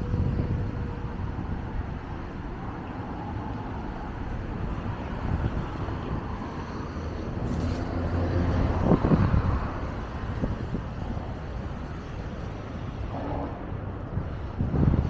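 City street traffic: a steady low rumble of cars on the road, growing louder as a vehicle passes about eight to ten seconds in.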